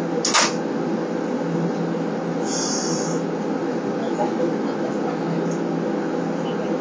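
Hiroshima streetcar heard from inside the driver's cab: a steady running noise, with a sharp click a moment in and a short high hiss about two and a half seconds in.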